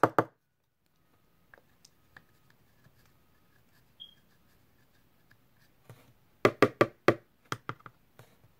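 A pencil picking at pigment in a small plastic compact and tapping against it and the tabletop: a few faint ticks, then a quick run of sharp taps about six and a half seconds in, with a few more just before the end.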